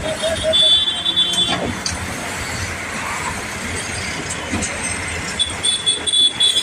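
Excavator working, with a high-pitched metallic squeal twice: for about a second near the start and again near the end.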